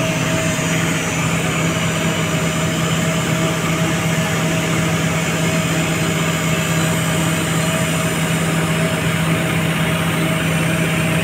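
Diesel engine of heavy construction machinery running at a steady idle: an even, unchanging low hum.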